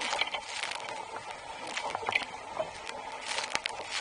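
Spray bursting over a Laser Fun dinghy's deck as it sails fast, hitting the camera in irregular sharp splats over a steady rush of water.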